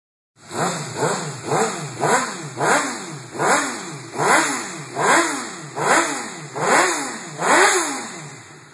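A 2007 Suzuki GSX-R600's inline-four engine blipped over and over on a dyno, about eleven sharp revs rising and falling roughly once a second. It settles back toward idle near the end.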